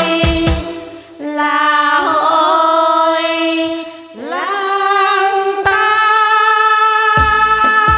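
Music: women's voices singing a Vietnamese quan họ folk song in long, wavering held notes, with a beat of percussion coming back in near the end.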